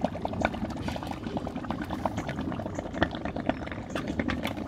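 Quicklime slaking in a wet sand and water hot-mix inside a galvanised metal dustbin, bubbling with a steady crackle of many small pops as the reaction heats the mix. The boil is milder than the mixer expected.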